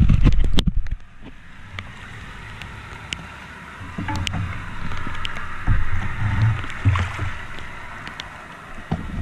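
Floodwater sloshing and splashing in a flooded street gutter, with scattered clicks and low bumps. A loud low rumble fills the first second.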